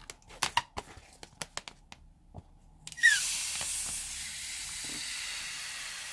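A few light clicks and rubs as an inflated rubber balloon is handled, then about three seconds in the balloon's neck is cut with scissors and air hisses out of it steadily, starting with a short falling squeal.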